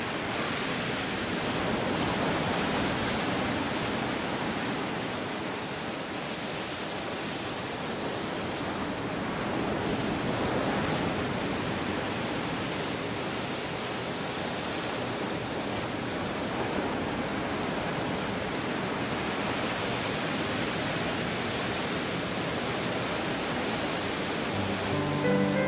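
Atlantic surf washing onto a sandy beach: a steady rush of breaking waves that swells and eases slowly. Piano music comes in at the very end.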